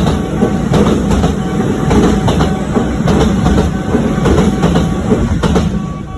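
A Kintetsu train running through the station over the level crossing, its wheels clattering over the rail joints, with the crossing's warning bell ringing underneath. The train noise starts to fade near the end.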